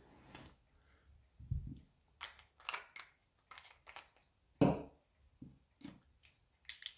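A breathy exhale, then small clicks, taps and rustles of things being handled on a tabletop. There is a low thud about a second and a half in and a sharper, louder knock a little past halfway.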